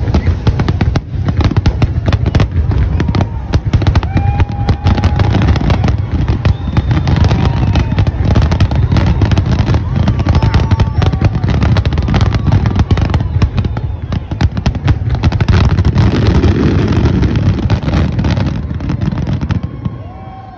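Fireworks display: a rapid, continuous barrage of aerial shell bursts and crackling, loud throughout, dying away near the end.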